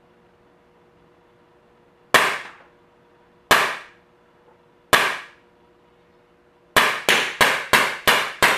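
Daisy Winchester Model 11 CO2 blowback BB pistol firing. There are three single shots about a second and a half apart, then six quick shots in under two seconds.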